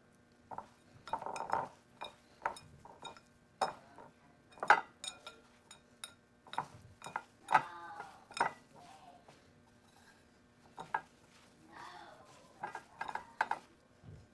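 Hands coating beef pieces in cornstarch in a metal mixing bowl: irregular clinks and taps as hands and meat knock against the bowl.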